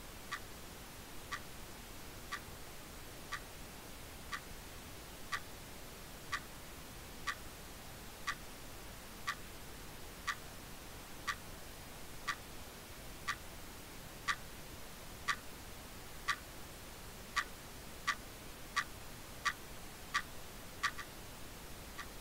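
Wall clock ticking quietly and evenly, about once a second, with the ticks coming faster for a few seconds near the end.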